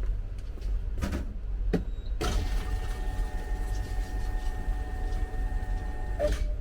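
A small electric motor starts with a clunk about two seconds in, runs with a steady whine for about four seconds, then stops. A couple of light clicks come before it, over a constant low rumble.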